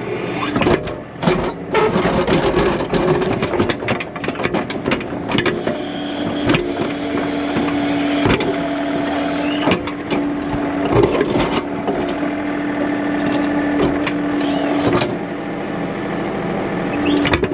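John Deere 3039R compact tractor's diesel running under load with a steady whine, while its bucket scrapes across rocky soil with repeated knocks and clatters of stones.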